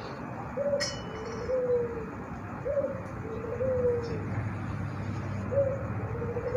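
A dove cooing three times, each phrase a short note followed by a longer falling note, about every two and a half seconds. A short clink rings out about a second in.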